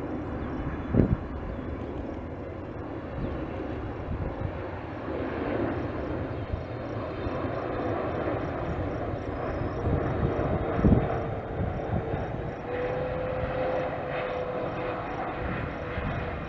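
Boeing 777 freighter's twin GE90 turbofans on final approach at low power, a steady jet rumble with a whining tone that rises slightly late on and then eases off as the aircraft passes and flares for landing. Two brief low thumps, about a second in and again about eleven seconds in.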